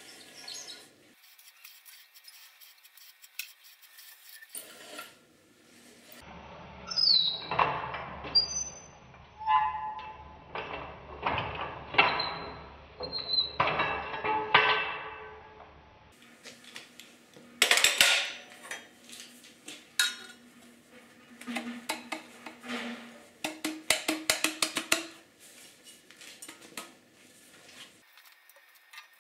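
Rotary tube cutter being turned round a large copper pipe: repeated metallic clicks and knocks, with short high squeals in the middle, as the cutter wheel scores through. Near the end come quick clinks of copper pipe and fittings being handled.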